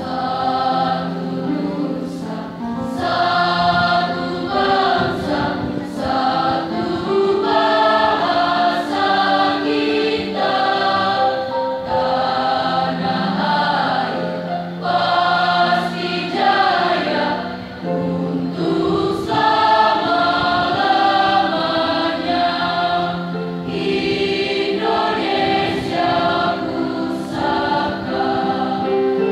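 Mixed school choir of girls' and boys' voices singing, accompanied by an electronic keyboard, in sung phrases with short breaks between them.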